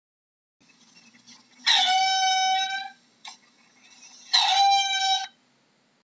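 Mongoose calling: two long squealing calls, each rising quickly and then held on one pitch, the second shorter, with a short click between them.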